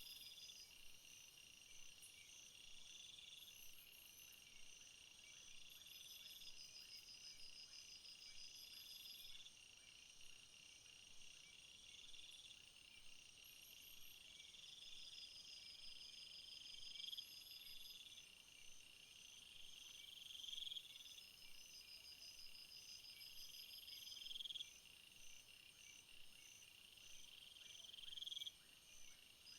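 Faint summer chorus of stridulating insects in a field, several chirping at once. One rasping phrase recurs every two to three seconds, swelling toward its end, over steady, higher, pulsing trills and short high chirps.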